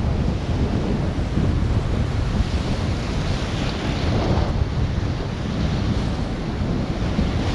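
Atlantic surf breaking and washing over a flat rock shelf, with wind rumbling on the microphone. A wave rushes in with a brighter hiss about halfway through.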